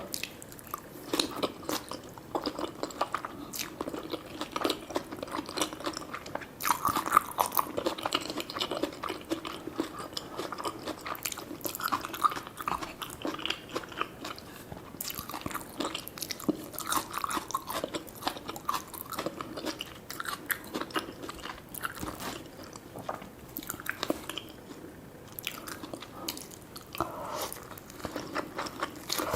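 Close-miked chewing and biting of food: wet, smacking mouth sounds with many small clicks and light crunches, going on steadily without a pause.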